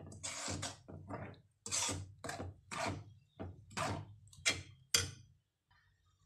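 Metal spoon stirring a wet ground onion-coconut paste and water in a metal pan, in quick repeated strokes about two to three a second, stopping about five seconds in.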